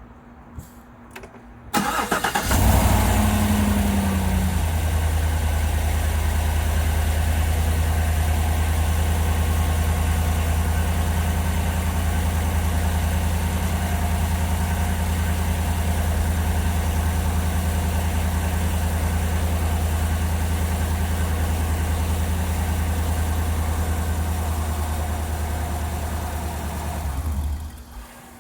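A car engine is started with a brief crank and catches about two seconds in. It idles steadily, a little higher for the first couple of seconds, then is switched off shortly before the end.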